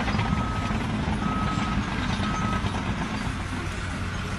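A vehicle's reversing alarm beeps three times, about once a second, each beep a steady tone about half a second long, then stops. An engine runs underneath.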